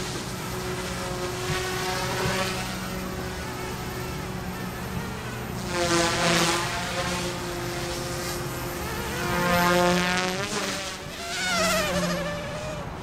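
OMPHOBBY M2 micro electric RC helicopter in flight, its direct-drive main and tail rotor motors making a buzzing whine. The pitch sweeps up and down as it manoeuvres, and the sound swells three times, loudest about six and ten seconds in.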